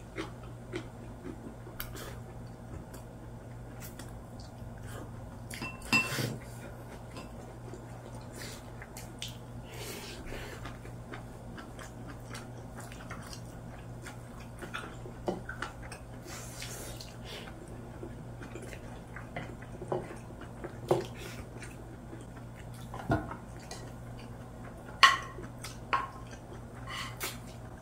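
Chopsticks and spoons clinking against ceramic bowls every few seconds while eating, the sharpest clinks about six seconds in and near the end, over a steady low hum.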